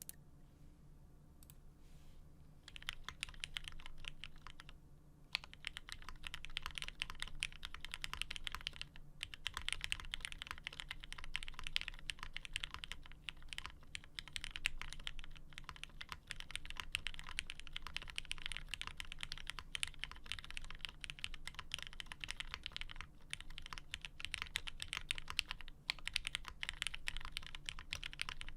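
Steady, fast typing on a plateless Geonworks F1-8x custom mechanical keyboard with lubed retooled Cherry MX Black linear switches and GMK keycaps. The typing starts a couple of seconds in and pauses briefly a few times.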